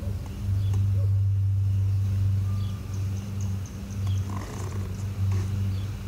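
A low, steady mechanical hum that holds one pitch while swelling and fading in loudness, with a few faint ticks.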